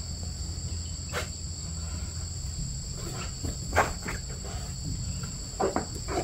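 Steady high-pitched insect chorus, with a few short knocks and clicks over it, the loudest about four seconds in.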